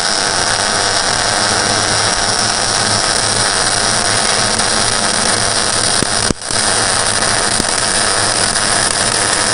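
Electric welding arc hissing and crackling steadily, cutting out for a split second about six seconds in and striking again.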